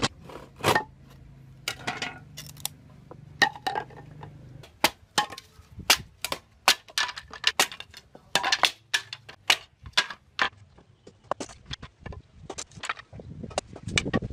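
A large chopping knife striking and splitting green bamboo into strips on a wooden block: a string of sharp, irregular knocks and cracks.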